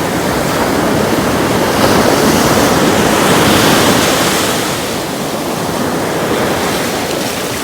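Ocean surf close by: a wave breaking and washing in, swelling about two seconds in and easing off after about five.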